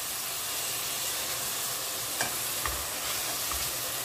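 Minced meat and chopped vegetables sizzling in a pot, a steady frying hiss. About two-thirds of the way in, a spoon starts stirring the mince, adding soft low knocks and scrapes against the pot.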